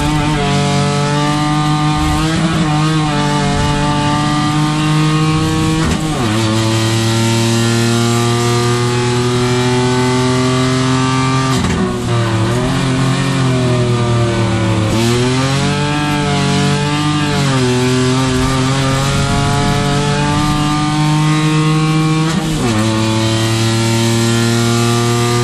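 Renault Twingo Cup race car engine heard from inside the cockpit under hard acceleration. The revs climb steadily and drop sharply at upshifts about two, six and twenty-three seconds in. From about twelve seconds in, the revs fall and swing up and down for about five seconds through a slower section before pulling hard again.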